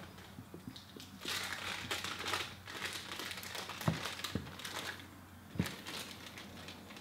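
Squeegee being worked over wet Xpel Stealth paint protection film on a car's body panel: crinkling, scraping strokes, with three sharp clicks in the second half.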